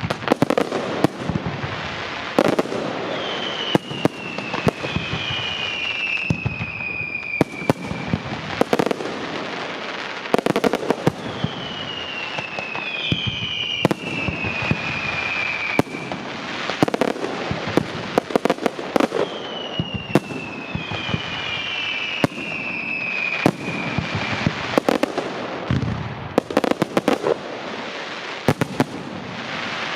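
Fireworks display: a steady run of sharp bangs and crackling shell bursts, with whistles that fall in pitch over a couple of seconds, two or three at a time, returning about every eight seconds.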